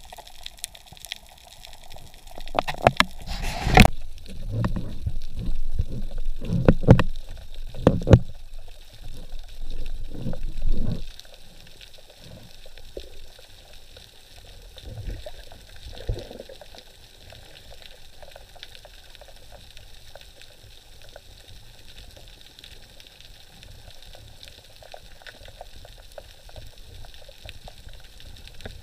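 Underwater sound of water moving around the camera: irregular gurgling and rushing with sharp clicks, busiest in the first ten seconds with the loudest click about four seconds in, then settling to a low steady wash.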